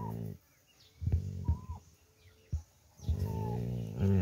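A Rottweiler growling low, in three steady rumbles with short pauses between, while guarding a dead snake it is chewing on.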